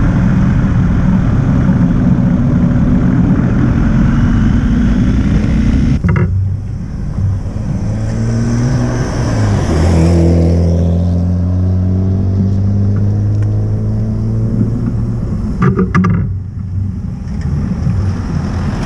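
BMW GS motorcycle engine running while riding, with wind rush on the microphone. After a change about six seconds in, the engine settles to a steady low note and a car goes past close by. A few short knocks come near the end.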